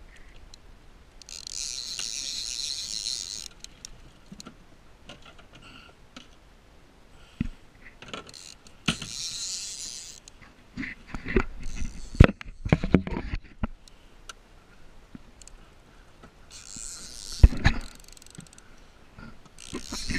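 Conventional fishing reel ratcheting in three bursts of about two seconds each, while a hooked skipjack tuna is fought on the rod. Sharp knocks and handling clatter come in between.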